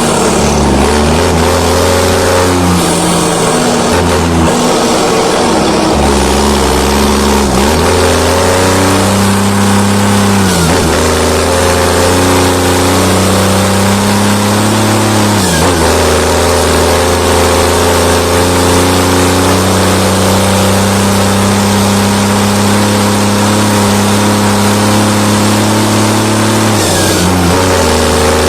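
A New Holland T7 tractor's diesel engine running loud and steady. Its engine speed holds for several seconds at a time and shifts in steps, with a brief dip and recovery about 4, 7.5, 10.5, 15.5 and 27 seconds in.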